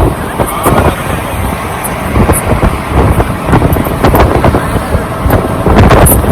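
Wind buffeting the phone's microphone over the engine and road noise of a moving vehicle, a loud rumble broken by irregular crackles.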